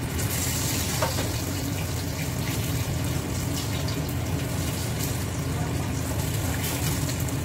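Pieces of food sizzling in hot oil in a frying pan as they are turned over, a steady hiss with a constant low hum underneath.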